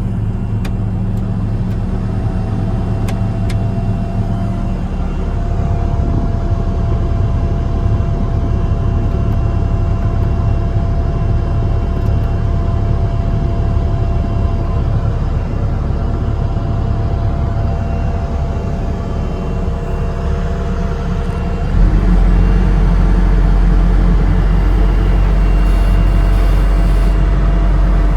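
Bobcat S740 skid steer loader's diesel engine running steadily. About three-quarters of the way through, it steps up suddenly to a louder, heavier hum that then holds.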